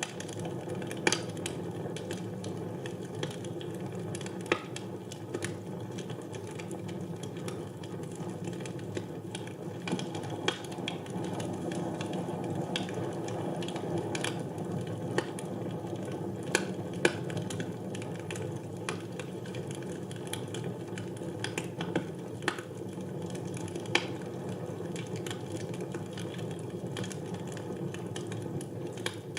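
Wood fire burning in a fireplace: a steady low rush of flame with irregular crackles and sharp pops, a handful of them clearly louder snaps.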